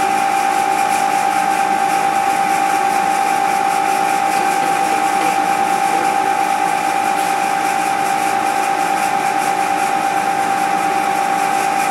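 Milling machine spindle running with a steady high whine as a small twist drill drills a hole in a metal part held in the vise.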